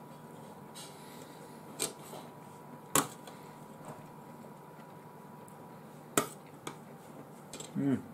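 Eating utensils clicking and knocking against a plate or bowl a few times, with two sharp loud knocks about three and six seconds in. A short hum that rises and falls in pitch comes near the end.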